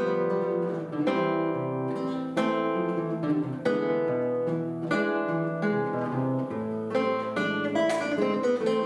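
Plucked string instruments playing a classical duet: melody notes and chords over a moving bass line, with no pauses.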